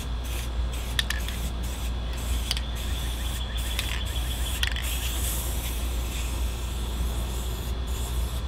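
Aerosol can of Krylon red oxide primer spraying onto sheet-metal engine tin: a steady hiss, cut by several brief pauses between passes.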